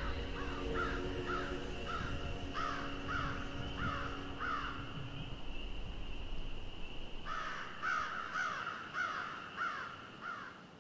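Crows cawing in quick runs of harsh calls, about two a second, breaking off for a couple of seconds midway before starting again.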